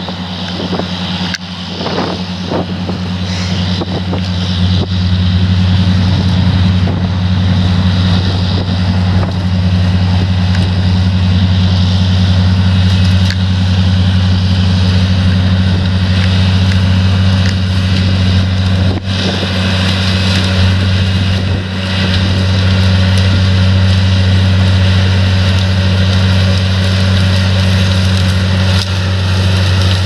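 Dewulf RA 3060 self-propelled potato harvester working in the field: a steady low engine drone over a broad, noisy rush from the lifting gear, growing louder over the first few seconds as the machine comes close.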